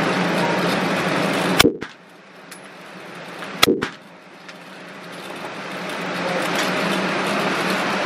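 Two handgun shots fired in an indoor shooting lane, about two seconds apart, each a sharp crack over a steady background hum. After each shot the hum drops away and slowly comes back.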